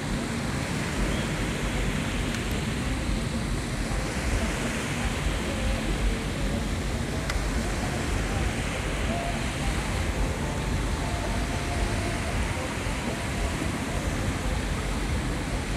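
Steady wash of small waves breaking on a sandy beach, with wind rumbling on the microphone and faint voices in the background.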